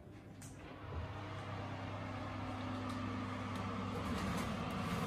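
Electric wall oven humming steadily, its fan heard once the door is opened about a second in, with a few light metal clicks as a baking tray is set on the oven rack.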